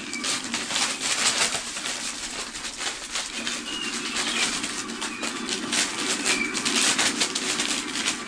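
Recorded pigeon sound effect played back: rapid wing flapping and cooing, with a few short high squeaks over it.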